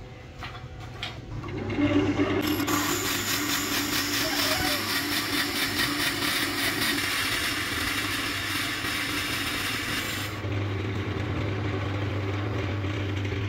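Wood lathe spinning a wooden blank while a boring bit fed in from the tailstock drills into its end grain. A loud, steady cutting noise starts about two seconds in and drops away after about ten seconds, leaving the lathe's hum.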